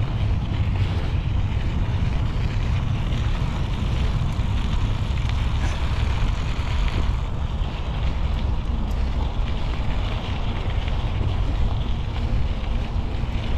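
Steady wind rush on the microphone over a low rumble, from riding a bicycle along a path.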